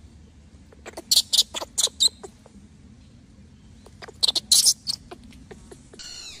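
Baby macaque squealing: two quick series of short, shrill cries about three seconds apart, then a brief falling call at the end.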